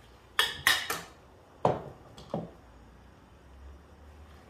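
Aluminium camping cookware clinking as cups are handled in a nested pot: three quick clinks about half a second in, then a louder knock and a lighter one around two seconds in.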